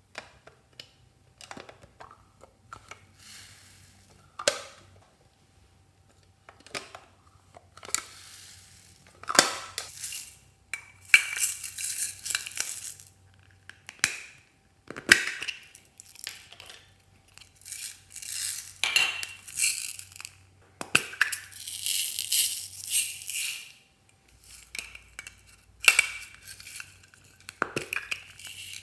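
Small plastic toy containers clicked and pried open, and foam beads poured rattling into a glass dish of slime, in several bursts of a few seconds with sharp clicks between.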